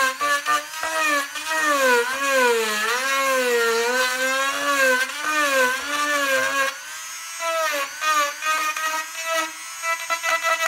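Handheld rotary tool with a small burr carving wood: a high whine whose pitch sags and recovers as the burr bites into the wood and eases off. About two-thirds of the way through it dips briefly, then runs on at a steadier pitch.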